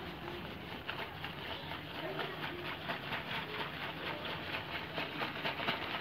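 Crushed ice and salt rattling inside a cloth-wrapped zip-lock bag shaken at about five strokes a second, starting about a second in. The shaking is what freezes the milk and cream mix in the inner bag into instant ice cream.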